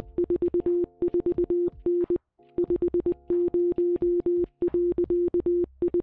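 Morse code (CW) sent fast as a keyed audio tone of one steady pitch: quick dots and dashes with a brief pause about two seconds in. It is spelling out the Titanic's distress message giving its position, 41.44N 50.24W.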